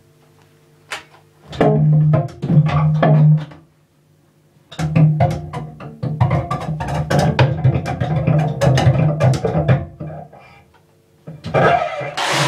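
Cello scraped and bowed in rough stop-start bursts: a low droning note under dense, scratchy bow strokes. Near the end a harsher hissing burst comes in.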